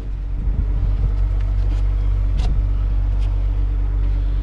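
Vehicle engine idling, a steady low hum with a couple of faint ticks about halfway through.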